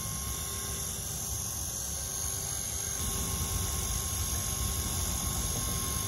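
Steady low rumble and hum of background noise, with no distinct event standing out.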